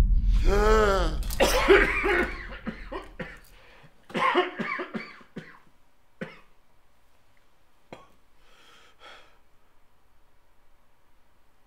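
A man gasping awake, then a fit of harsh coughing that breaks into a few single coughs and ragged breaths. A low rumble fades out over the first two seconds.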